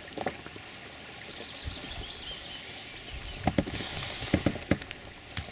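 Steady outdoor background on open water with faint bird chirps in the first half and a few soft knocks scattered throughout.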